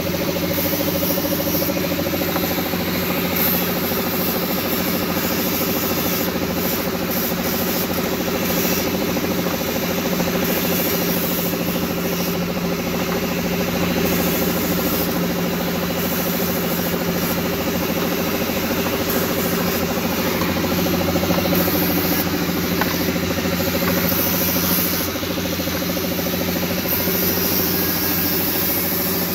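Bench-mounted grinder with its disc running steadily, grinding down the edges of brake pads pressed against it: a continuous motor whine over an abrasive hiss.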